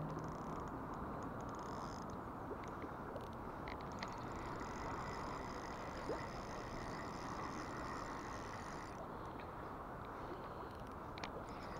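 Steady rush of flowing river water, with a few faint clicks and a thin high twittering from about four to nine seconds in.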